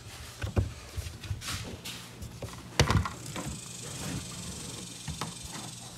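Handling noise in a car trunk: a scatter of knocks, taps and rubs as things are shifted about, the loudest knock nearly three seconds in.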